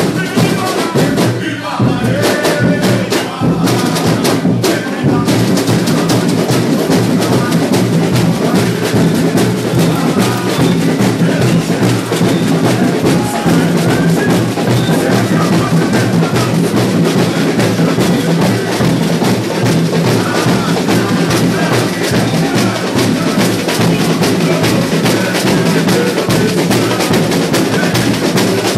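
Samba school drum section (bateria) playing a fast samba: massed surdo bass drums, snares and repiniques drumming together in a dense, steady rhythm.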